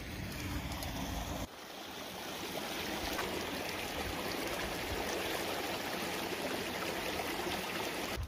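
Shallow creek running over rocks, a steady rush of water. It sets in about a second and a half in, after a short stretch of low rumbling.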